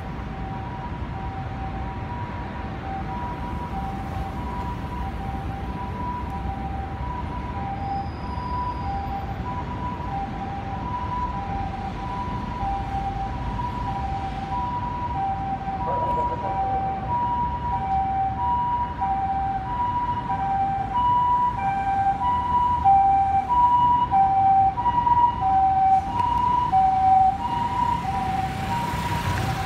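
Tokyo Fire Department ambulance's two-tone siren: the Japanese "pee-po" pattern, alternating a high and a low tone about every two-thirds of a second, over traffic rumble. It grows louder through the second half, then stops shortly before the end.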